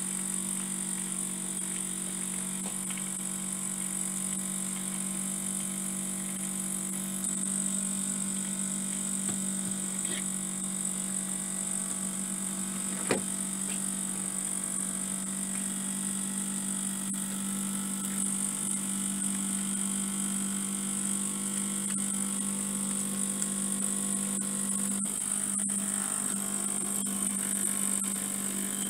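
Two small oscillating-cylinder (wobbler) model steam engines running steadily: a steady low hum under a steady high hiss, with one sharp click about halfway through.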